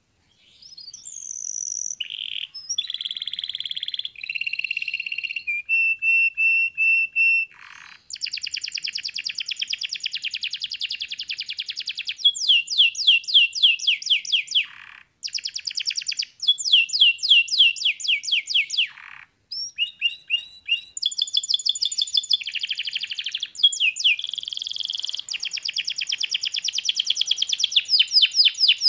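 Yellow domestic canary singing a long, high-pitched song of rapid trills and rolls, each phrase a fast run of repeated notes, some sliding down in pitch and some held steady, with short pauses between phrases.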